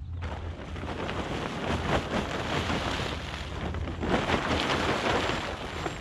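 Heavy plastic tarp being lifted and folded over, crinkling and rustling, with louder swishes about two seconds in and again past the middle.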